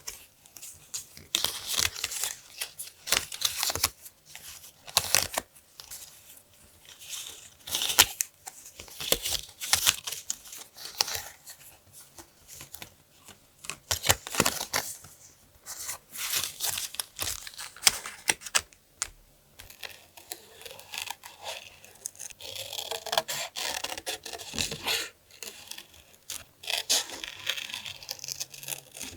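Paper being torn and handled in irregular short rustling bursts, with a few sharp clicks and crinkles.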